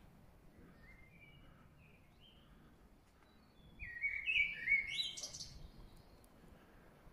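Garden birdsong: a few faint, short chirps, then a loud, fast phrase of high notes about four seconds in.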